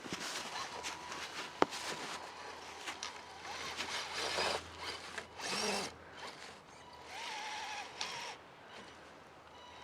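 Axial SCX10 RC crawler's electric motor and drivetrain whirring in several short bursts of throttle as it works through snow, with a wavering whine in the last burst. A single sharp click about a second and a half in.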